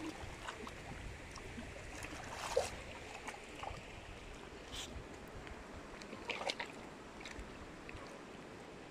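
Shallow river flowing over stones, a faint steady rush, with a few short splashes from a dog wading in the water, the clearest about two and a half seconds in and again around six and a half seconds in.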